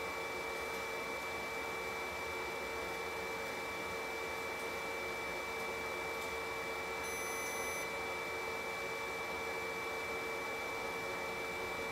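Steady hum and hiss with a constant high whine from the stove's electronic ignition blowing air into the fuel bed. A short, faint high beep sounds about seven seconds in.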